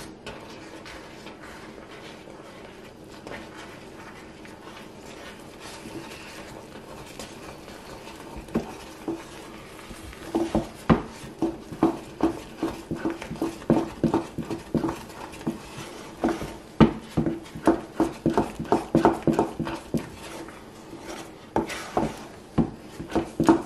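Wooden spatula stirring and turning thick sweet potato fufu dough in a metal saucepan, the paste slapping and the spatula knocking against the pot. Soft stirring at first, then from about ten seconds in a steady run of knocks, about two a second, as the dough stiffens.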